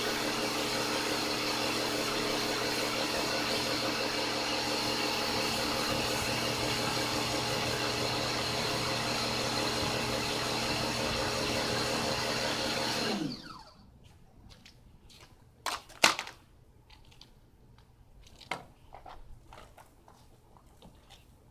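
Pressure washer motor running steadily, then shutting off about two-thirds of the way through and winding down quickly in pitch. After that come a few sharp knocks, one of them loud.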